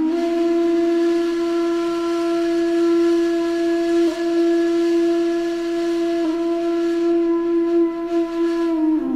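A flute-like wind instrument holding one long, breathy note at a steady pitch, with two brief breaks in it.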